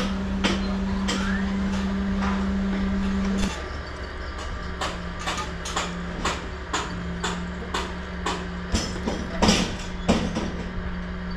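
Building-site noise: a steady machine hum under sharp knocks that repeat about twice a second, like hammering. The hum drops and changes slightly about a third of the way in.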